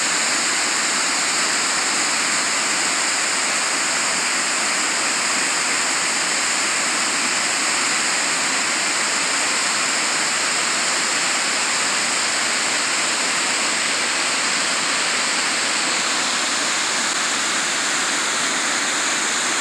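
Tiered waterfall splashing down over rock ledges: a loud, steady rush of falling water.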